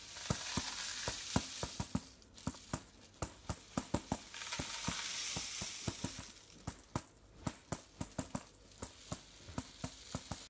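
Homemade paper-plate tambourine with small jingle bells tied round its rim, played in a quick, even rhythm of about four strokes a second, the bells jingling on each stroke. Two stretches of a softer rattling hiss run under the strokes.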